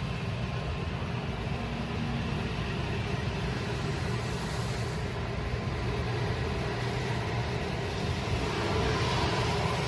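N700-series Shinkansen train pulling slowly out of the station: a steady low motor hum and rolling noise that grows gradually louder as it gathers speed.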